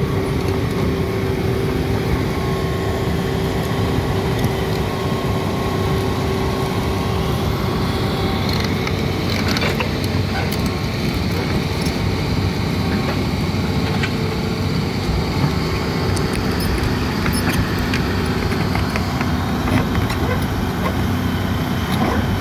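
Hitachi tracked hydraulic excavator's diesel engine running steadily under load as the machine tracks into a shallow sandy river, with scattered short knocks.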